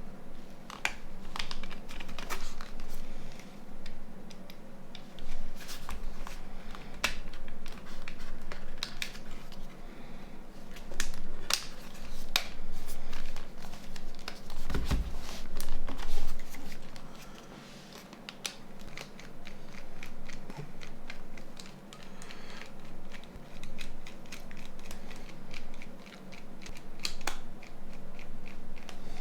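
Irregular small clicks, taps and scraping of plastic and metal parts of a Nokia 9210 Communicator being handled and pressed into place by hand during reassembly, with a duller knock about halfway through.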